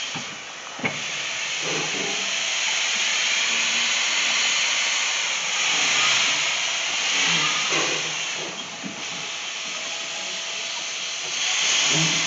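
Steam hissing steadily from a standing two-foot-gauge steam locomotive, Bridgton & Saco River #7. The hiss swells twice. A single sharp click comes about a second in.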